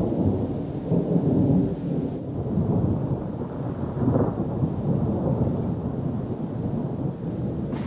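Thunder rumbling in a long, continuous rolling peal during a thunderstorm, swelling about a second in and again around four seconds.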